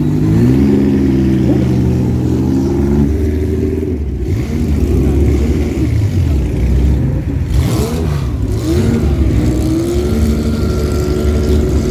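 Classic Porsche racing car engines revving and pulling away one after another. The engine note rises and falls over the first few seconds, turns into a rougher, louder run as a car goes by in the middle, then settles into a steadier, slightly rising note near the end.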